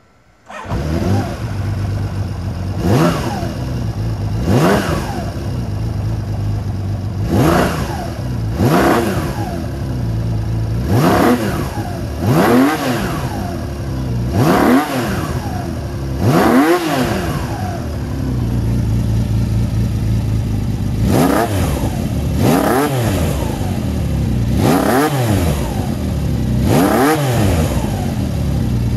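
Honda CBX1000's air-cooled inline-six engine starting about half a second in, then idling and being blipped: about a dozen short revs that rise and fall back to idle, with a steadier idle for a few seconds in the middle.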